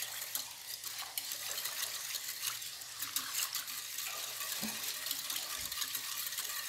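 A metal wire whisk stirring a thin liquid of milk, sugar and yeast in a bowl. The liquid swishes steadily, with many quick light clicks of the wires against the bowl.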